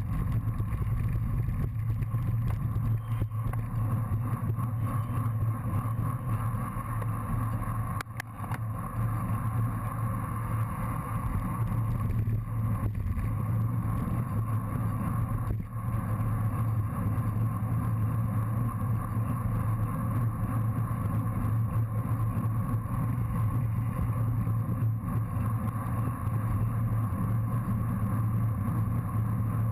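Steady wind and road rumble picked up by an action camera mounted on a racing bicycle riding at speed, with a constant low drone.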